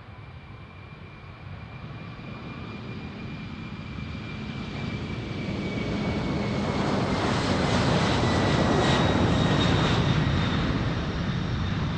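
Jet airliner's engines passing close by, the noise building steadily to a peak about two-thirds of the way through and then beginning to ease. A high engine whine runs over the rumble, sliding slowly down in pitch as the aircraft goes past.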